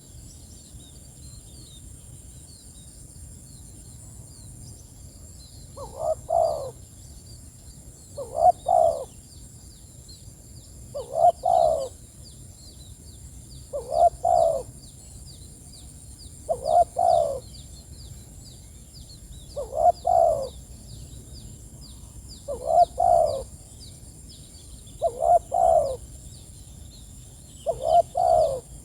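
Spotted dove cooing: a short two-part coo phrase repeated nine times, about every three seconds, starting about six seconds in. Faint high chirps sound throughout.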